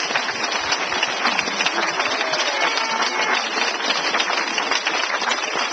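Wedding guests applauding, a steady patter of many hands clapping.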